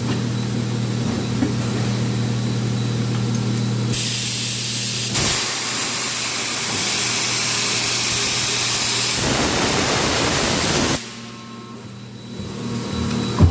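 Factory machinery making car parts, running with a steady electrical hum. About four seconds in, a loud hiss starts and runs for roughly seven seconds, then cuts off suddenly. After that the sound drops briefly before the hum comes back, with a click near the end.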